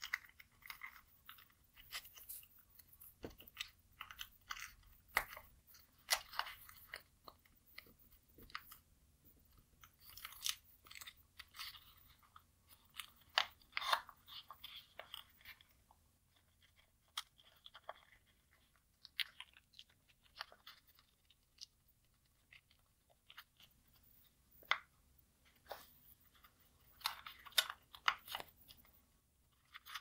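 Black origami paper being folded and tucked by hand into a cube unit: irregular crinkling and rustling with sharp creasing crackles, thinning out for a few seconds past the middle.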